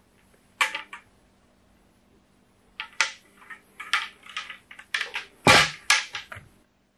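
A series of sharp clicks and knocks spread over several seconds, the loudest about five and a half seconds in: steel golf iron heads being handled and knocking against one another.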